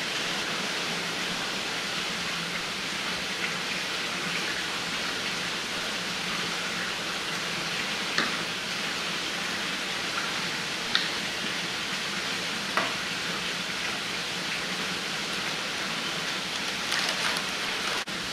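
A steady hiss of background noise, with a few faint taps of a knife on a plastic cutting board as a fish is filleted.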